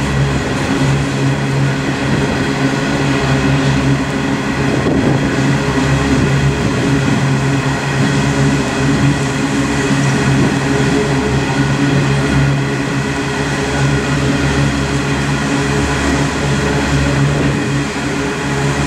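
Diesel locomotives of a coal train running steadily, a low hum with several steady tones over a haze of wind noise.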